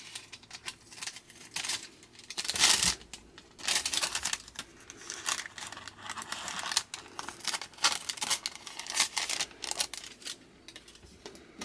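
Parchment paper crinkling and rustling in irregular bursts as it is handled and shaped by hand.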